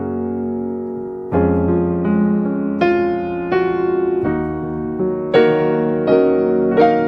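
Piano music: slow chords and single notes, each struck and left to ring, a new one about every second.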